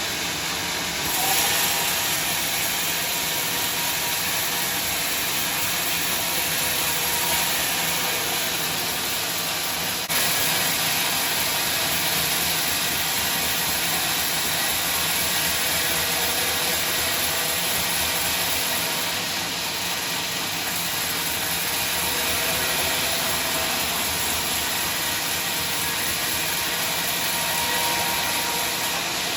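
Sawmill machinery running, a steady loud hissing mechanical noise. The noise jumps abruptly about ten seconds in.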